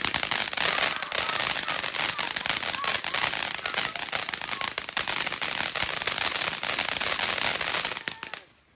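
Consumer fireworks crackling: a dense, rapid run of small pops that starts suddenly and stops after about eight seconds.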